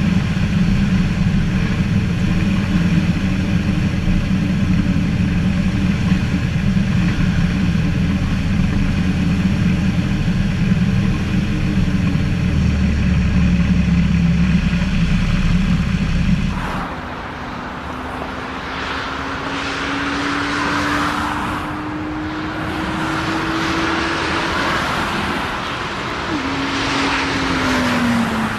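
Airliner engines running with wind noise. For the first two-thirds there is a loud, steady low rumble with a few steady tones; then the sound changes abruptly to a quieter rush with an engine whine that rises slowly and drops away near the end.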